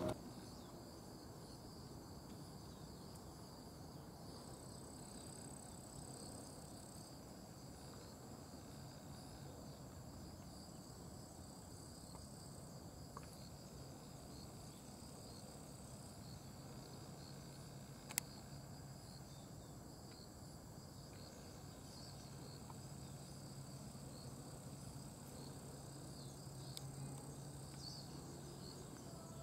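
Faint, steady chorus of insects, high-pitched and continuous, with a faint low hum underneath and a single sharp click about 18 seconds in.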